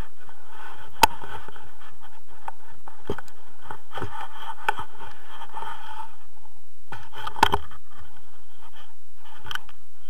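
Scraping and rubbing against a hand-held action camera as it is moved against harness and clothing, with two sharp knocks: one about a second in and one at about seven and a half seconds.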